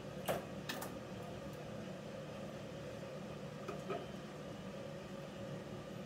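Grooming scissors snipping a dog's coat in a few sharp cuts, three in the first second and two more about four seconds in, over a steady machine hum.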